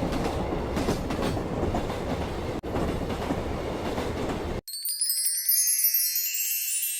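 Train running on the rails, a steady rumble with wheel clatter, cut off abruptly about two-thirds in. A high, tinkling chime effect follows: a quick run of bell-like notes.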